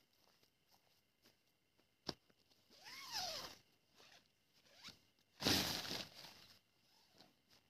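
Nylon tent door zipper being pulled in two strokes, about three seconds in and again, louder, at about five and a half seconds, each a short rasping zip that slides in pitch; a single sharp click about two seconds in.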